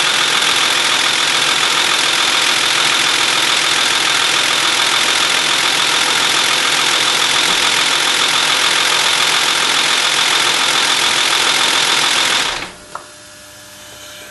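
BMW E39 engine running steadily with a loud, hissing, high-pitched mechanical noise, which the owner suspects comes from the lifters or the VANOS camshaft unit. The sound stops abruptly near the end, leaving a faint hum and a single click.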